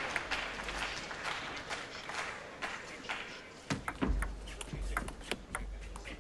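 Crowd applause dying away after a point. A little past halfway, a table tennis rally starts: the ball clicks sharply off rackets and table in quick alternation.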